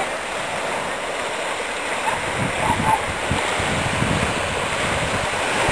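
Small waves breaking and washing up onto a sandy beach: a steady rush of surf, heavier from about two seconds in.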